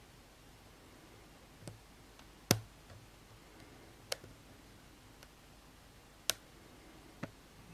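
Pin tumbler lock being picked: five sharp, irregular clicks from the pick and pins inside the lock, the second the loudest.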